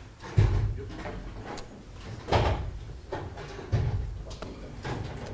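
Dull thuds and knocks of things being handled on a lecture desk, three heavier thumps among lighter clatter, as a laptop and belongings are packed up.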